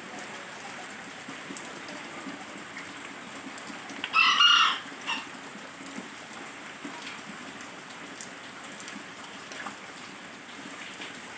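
Steady rain falling, with a chicken calling once loudly about four seconds in, followed by a short second note.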